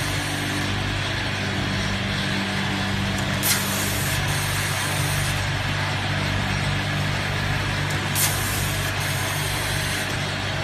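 ATM 8200 rotary stand-up pouch packaging machine running: a steady motor hum and mechanical clatter, with a short sharp hiss of air twice, about five seconds apart, as its pneumatics vent.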